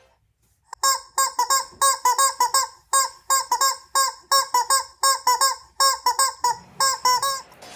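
Squeaky rubber chicken toy squeezed again and again, giving a quick string of honking squawks about three a second as mock dialogue. The squawks start about a second in and stop just before the end.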